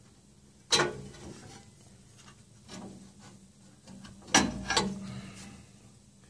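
Support rod being fitted into a metal rack bracket: a sharp clank about a second in, a softer knock near three seconds, then two louder clanks close together around four and a half seconds, with faint scraping between.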